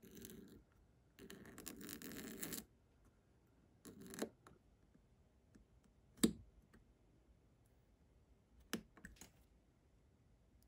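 Fine engraving blade scratching along a plastic model part in two short strokes, followed by a softer scrape and then a few sharp clicks, the loudest about six seconds in.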